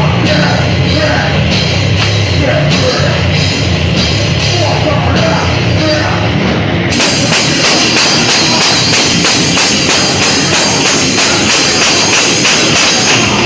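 Live heavy rock band playing loud, with distorted guitars, bass and a pounding drum kit. About halfway through the cymbals come in hard and the sound grows brighter.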